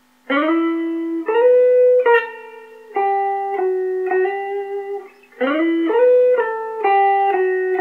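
Electric guitar in a clean tone playing a slow single-note melody on the G string, with slides between notes. The same short phrase is played twice, starting again about five seconds in.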